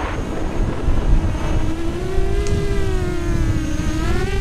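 Motor and propeller of a remote-controlled model running with a steady whine that wanders slightly in pitch and rises near the end, over a low rumbling noise.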